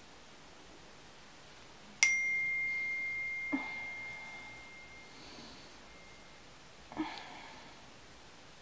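Phone message alert: a single bell-like ding that starts suddenly about two seconds in and rings on, fading, for about four seconds. Soft rustles of bedding follow as the sleeper stirs and reaches for the phone.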